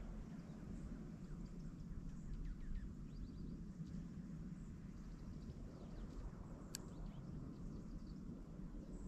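Outdoor winter ambience: a steady low rumble with faint, high bird chirps now and then, a quick run of them about three seconds in. A single sharp click sounds near seven seconds in.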